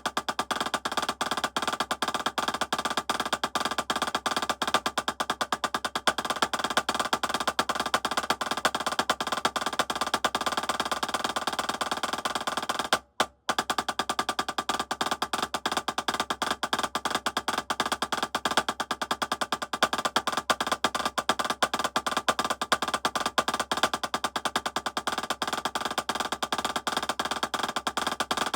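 Drumsticks playing fast, continuous strokes of a triplet drags-and-rolls rudiment exercise, with a brief stop about 13 seconds in.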